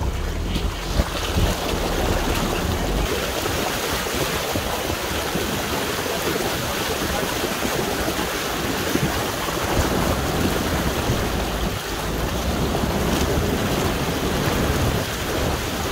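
Suzuki Jimny JB74's front tyre ploughing through a shallow river, water rushing and splashing steadily against the wheel and body.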